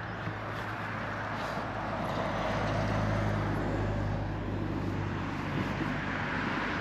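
Steady rumbling road noise from a loaded touring bicycle and trailer rolling along a rough path, with wind on the microphone, growing louder towards the middle and easing off near the end.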